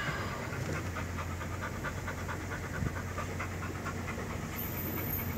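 A dog panting quickly and evenly inside a moving van, over the low steady hum of the engine and road; the panting fades about four seconds in.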